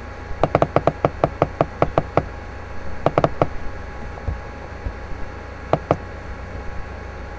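Quick runs of sharp, hollow clicking taps: about five a second for two seconds, then a cluster of four about three seconds in and a last pair near the end, over a steady low hum.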